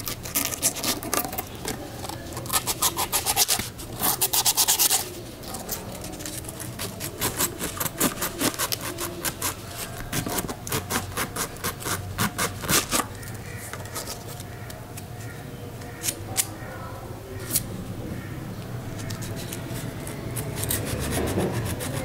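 Rusty steel blade of a pair of sewing snips being scrubbed with a small abrasive stick to strip the rust: quick runs of short scraping strokes, busiest in the first half, then thinning to a few single strokes after about 14 seconds.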